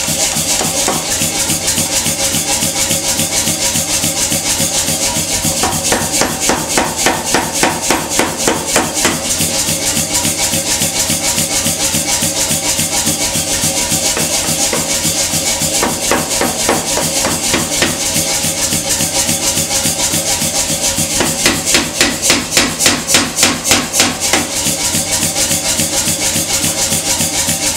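Power hammer striking red-hot rebar held in tongs, rapid repeated blows of steel die on hot steel, coming in bursts with two heavier runs of about three blows a second. Background music plays throughout.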